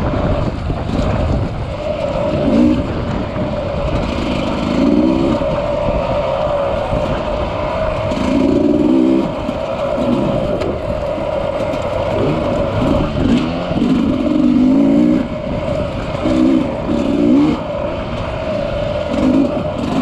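Dirt bike engine running on a rocky trail, its note rising and falling every second or two as the throttle is opened and closed, over a constant rough rumble.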